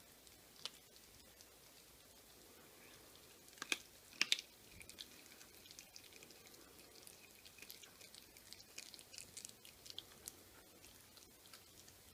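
Whippet puppy chewing on a chicken neck held in a hand: faint wet gnawing with scattered small crunches, and a couple of sharper cracks about four seconds in.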